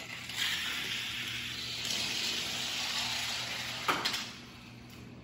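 Hot Wheels die-cast toy cars rolling down an orange plastic track, a steady rushing hiss, ending with a sharp clatter about four seconds in as they reach the end of the track.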